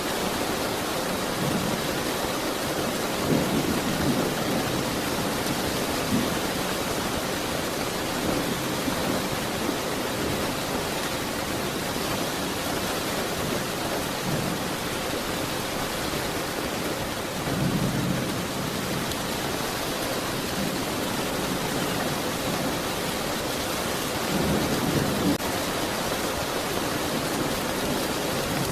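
Steady heavy rain falling, with a few brief low rumbles of distant thunder, about four seconds in, near the middle and near the end.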